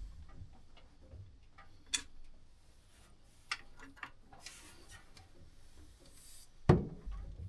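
Engine being turned over by hand with a breaker bar and socket: scattered metallic clicks and knocks a second or two apart, with one louder low clunk near the end.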